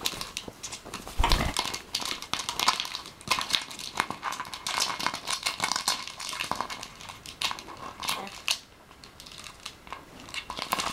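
Thin plastic water bottle crackling and crinkling in dense, irregular clicks as a blue-fronted Amazon parrot bites and shoves it, with wing flapping and a heavier thump about a second in.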